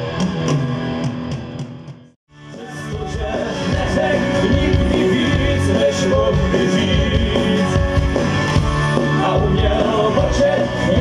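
Live hard country-rock band playing through a PA, with electric guitar, keyboard and drums. The music cuts out for a moment about two seconds in, then comes back louder.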